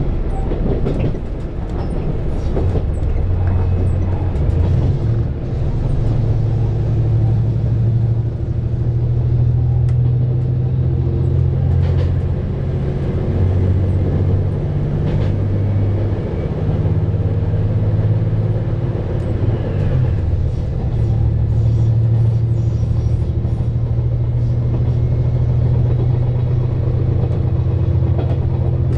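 KiHa 187 series diesel railcar running along the line, heard from inside the front car: a steady low engine drone that shifts in pitch a few times, with a few faint clicks from the wheels on the track.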